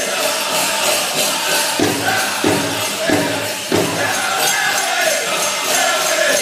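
Powwow drum group singing a chicken dance song over the big drum, with the jingling of the dancers' leg bells. About two seconds in, four heavier drum strokes stand out, a little over half a second apart.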